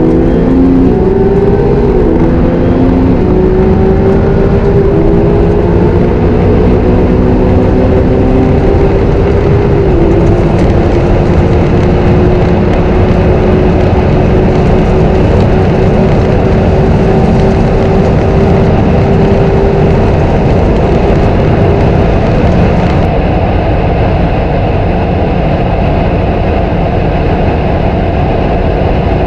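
Supercar engine under hard acceleration, its pitch rising in steps over the first few seconds, then holding one steady high note at speed over loud road and wind roar.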